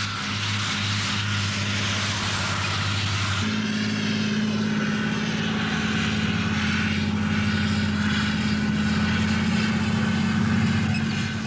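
Heavy tracked battle tank running, its engine making a loud, steady drone with a hiss of track and dust noise over it. The drone jumps suddenly to a higher pitch about three and a half seconds in and holds there.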